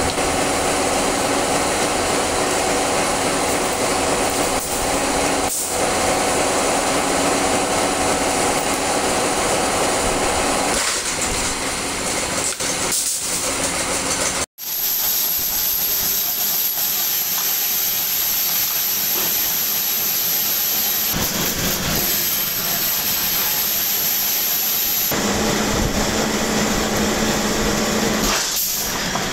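Motor-driven bolt-making machinery running with a loud, steady mechanical noise. About halfway through the sound cuts out abruptly, then goes on as a steadier machine drone with a thin high whistle, and a lower hum joins near the end.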